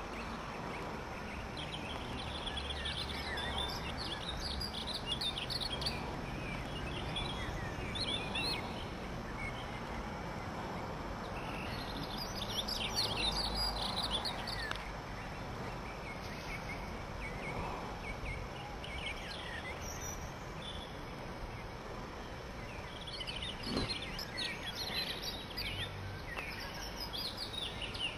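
Songbirds chirping in several short bursts over a steady outdoor background noise, with a single knock about two-thirds of the way through.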